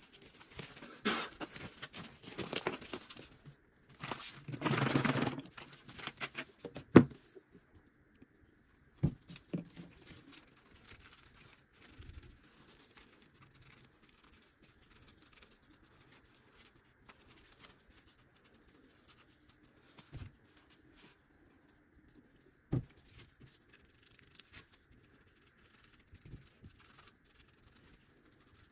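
Rustling, crinkling handling noise from nitrile gloves, a plastic bottle and a cloth for the first several seconds, with a few sharp knocks, then faint rubbing as a cloth soaked in sodium silicate (liquid glass) is dabbed and wiped over the inside of a hollowed wooden log bowl.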